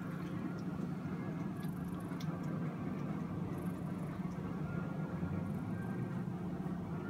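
Domestic cat purring steadily, a low even rumble, while its chin is scratched: a sign of contentment.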